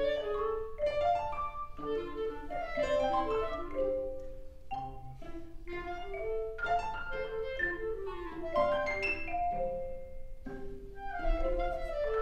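Contemporary chamber music from a violin, cello, clarinet, piano and percussion ensemble, with many quickly struck mallet-percussion notes ringing over the other instruments.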